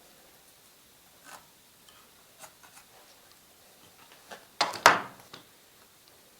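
Small scrap-wood parts being handled and set against each other on a workbench: scattered light clicks and knocks, with two louder knocks close together a little past the middle.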